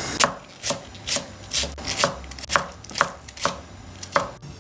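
Kitchen knife slicing a green onion on a wooden cutting board: about nine cuts, roughly two a second, each a sharp knock of the blade on the board.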